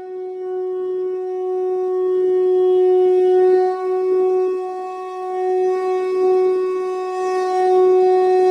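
A conch shell (shankh) blown in one long held note that swells and eases in loudness, with a breathy rush under it.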